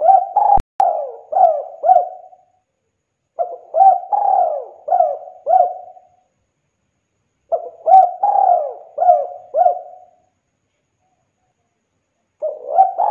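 Spotted dove cooing in repeated phrases of about five notes each, one phrase every four seconds or so: three full phrases, with a fourth starting near the end. A single sharp click about half a second in.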